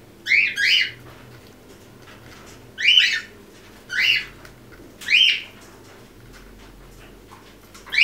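Quaker parrot (monk parakeet) giving short, sharp calls: a quick pair right at the start, then three more spaced about a second apart.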